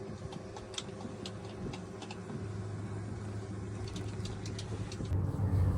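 Steady low engine hum with scattered light clicks and taps over it; the hum gets louder about five seconds in.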